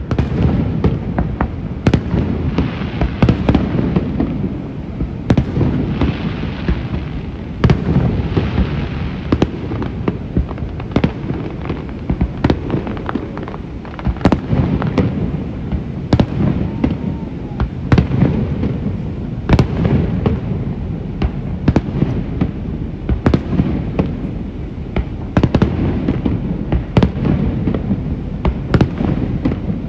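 A fireworks display: aerial shells bursting in quick succession, sharp bangs often one to two a second, over a continuous low rumble.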